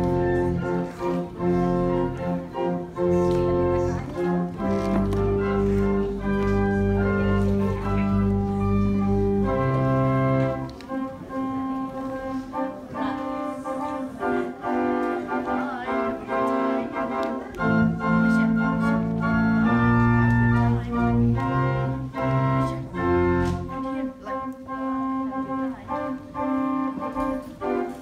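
Church organ playing slow, held chords, with deep bass notes that come in for long stretches and drop out in between.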